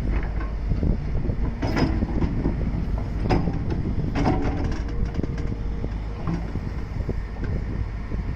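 Hydraulic excavator's diesel engine running steadily under load, with a few sharp metallic clanks and short squeals from the bucket and boom as it works the slope.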